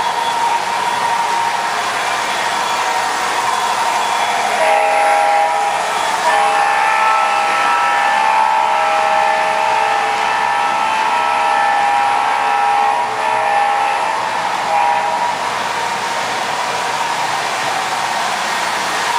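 MTH O-gauge CSX SD40-2 model locomotive's Proto-Sound 2.0 system sounding its multi-note diesel horn from about four seconds in until about fifteen seconds, with short breaks, over the steady rumble of the model train running on the track.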